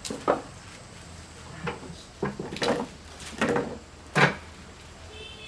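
A string of sharp clacks and knocks from a side-lever PCP air rifle being worked during a target-shooting test, the loudest one about a second before the end.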